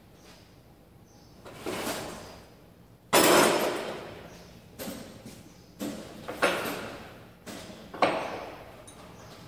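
A series of sudden loud knocks and clatters, about six of them, each fading away over up to a second; the loudest comes about three seconds in.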